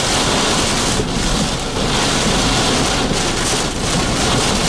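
Severe thunderstorm wind and rain hitting a vehicle: a dense rushing noise that swells and eases in gusts. It is wind that the chaser takes for hurricane force.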